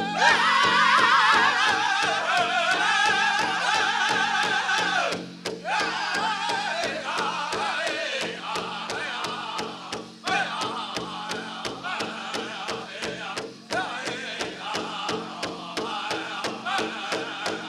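Powwow drum group singing a prairie chicken dance song: high, wavering voices in unison over a steady, fast beat on a large shared drum. The singing comes in loud at the start and breaks briefly between phrases.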